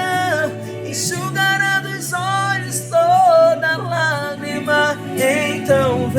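A Portuguese-language gospel song: a solo voice sings a melodic line over a band accompaniment with steady, sustained bass notes.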